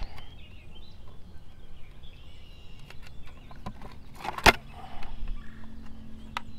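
A live white crappie being handled in a green plastic fish-measuring bumper: light scattered plastic clicks and rubbing, with one sharp smack about four and a half seconds in.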